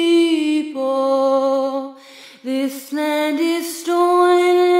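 A woman singing a cappella, holding long sustained notes that change pitch a few times, with a breath about two seconds in.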